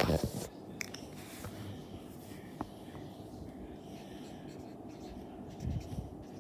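Handling noise: a short burst of rustling and scraping against paper at the start, then faint room tone with one light tick and a soft bump near the end.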